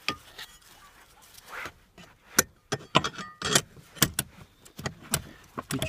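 Metal armrest bracket being handled and positioned, giving a quiet rustle at first, then a run of sharp clinks and knocks, about ten, in the second half.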